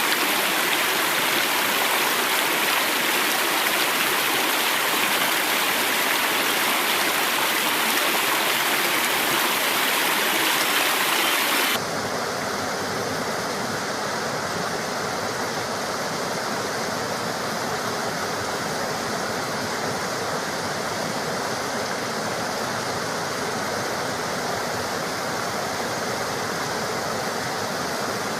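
Stream water rushing steadily, bright and hissy. About twelve seconds in it cuts suddenly to a different, slightly quieter stretch of flowing water that is deeper and less hissy.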